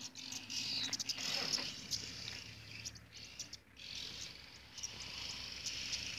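Insects chirring in a dense, high-pitched chorus of fast pulses, rising and falling in loudness.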